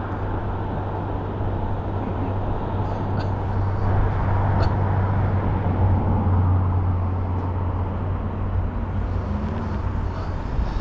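Steady road traffic noise with a low engine hum underneath, growing a little louder midway.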